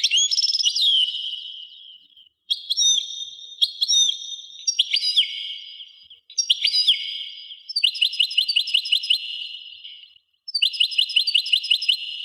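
A songbird singing rapid, high-pitched trilled phrases, broken by short pauses about every three to four seconds.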